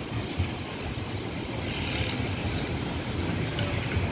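Wind gusting through trees and buffeting the microphone with an uneven low rumble over a steady hiss.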